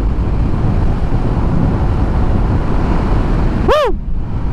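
Steady wind rush and road noise from a motorcycle riding at speed. Near the end the rider gives one short "woo!" shout that rises and falls in pitch.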